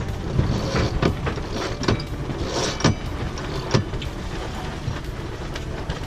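Steady rush of wind and water aboard a sailboat under sail, with a string of sharp knocks and splashes over the first four seconds.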